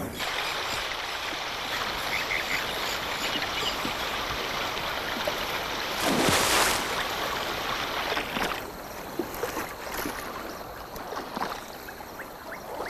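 Lake water lapping and trickling among shoreline rocks, with a louder splash about six seconds in. After about eight and a half seconds it thins to scattered small drips and splashes.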